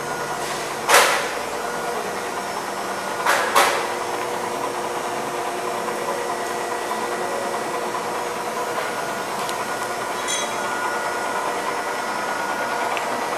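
Steady industrial shop hum with a few held tones, broken by sharp knocks: one about a second in and two close together around three and a half seconds, each ringing briefly.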